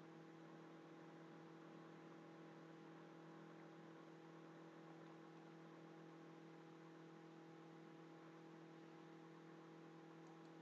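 Near silence: a faint steady electrical hum with light hiss.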